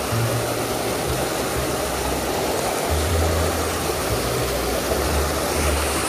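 Mountain stream rushing over a small rocky cascade, a steady hiss of running water. Low bass notes of background music sound underneath it.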